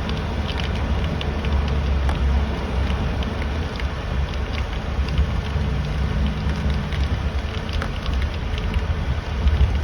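Car driving in rain: a steady low road rumble with raindrops ticking irregularly against the car.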